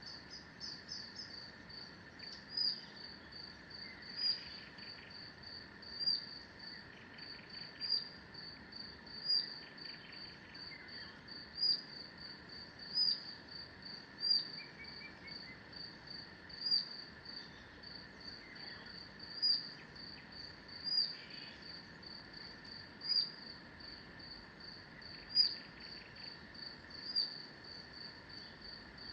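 Forest dawn-chorus ambience of birds and insects: a high, thin chirp repeats about twice a second, with louder chirps every second or two, over a steady high hum and a few faint, separate bird calls.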